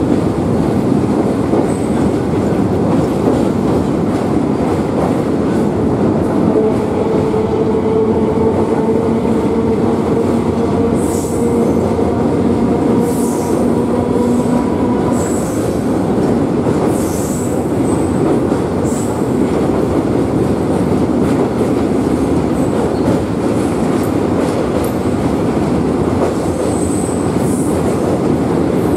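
Local passenger train running over a steel truss bridge, heard from an open doorway: a steady, loud rumble of wheels on rail. Faint whining tones join in from about six seconds in and fade by the middle, with a few brief high squeaks.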